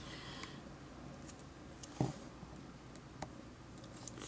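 Faint handling noise of fingers on a plastic action figure: a few small clicks, with one louder tap about two seconds in.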